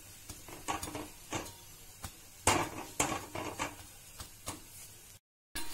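Kitchen utensil knocking and clinking against a tava griddle while a chapati is pressed and cooked on it: a run of irregular short knocks, two of them louder about halfway through. The sound cuts out completely for a moment near the end.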